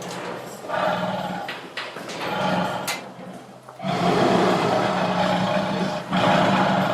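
Tiger roaring and growling: a shorter rough call about a second in, then a long, loud roar starting about four seconds in.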